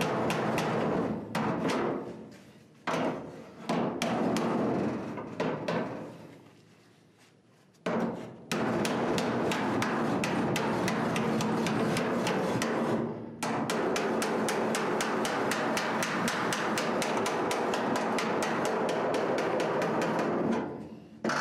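Body hammer striking sheet steel against a hand-held dolly in rapid, even blows, reshaping the folded edge of a Mustang's replacement quarter panel. The hammering stops briefly twice in the first eight seconds and once more about halfway through.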